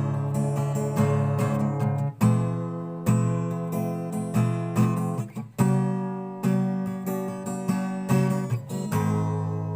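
Instrumental music led by an acoustic guitar strumming chords, with no singing.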